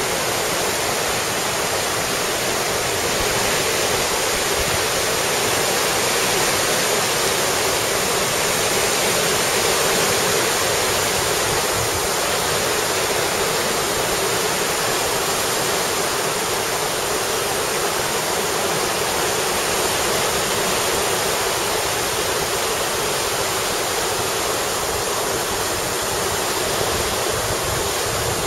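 Steady rush of churning tidal water in a maelstrom, the whirlpools and white water of a strong tidal current. The sound is even and hissy, with little deep rumble.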